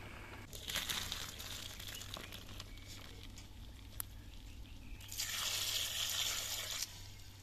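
Water poured from above splashing onto cooked green beans in a plastic colander, a hissing splash lasting about two seconds near the end. A shorter burst of similar splashing comes about half a second in.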